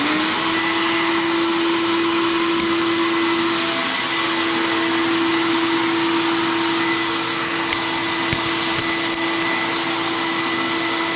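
Media-blast cabinet's dust-collection vacuum running steadily: one constant whining tone over a loud hiss. It cuts off suddenly at the very end.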